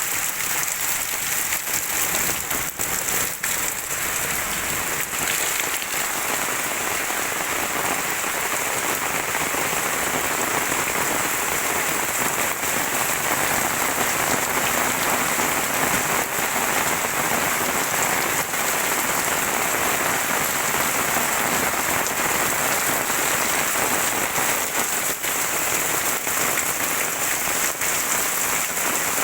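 Heavy rain pouring steadily, a dense even hiss with scattered sharp drop impacts, more of them in the first few seconds.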